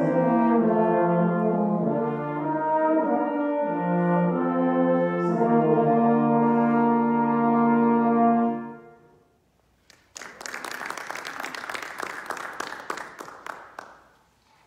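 Brass quartet of trumpet, trombone and two euphoniums playing a Christmas carol in sustained chords, ending on a held final chord that dies away about nine seconds in. About a second later, a short round of applause that fades out near the end.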